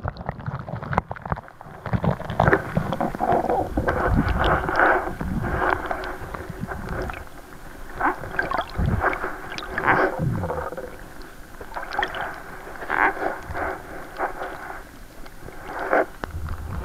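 Muffled sound of seawater heard by a camera held underwater: irregular gurgling and sloshing, with scattered knocks of water and handling against the camera, and little or nothing in the upper range.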